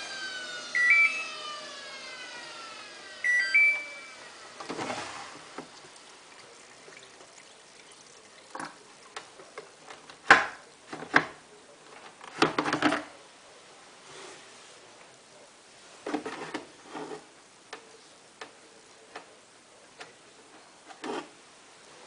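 Samsung WF8804RPA washing machine's drum motor spinning down, a whine falling steadily in pitch over the first few seconds, with two short rising two-note beeps from the control panel about one and three seconds in. After that, scattered clicks and knocks.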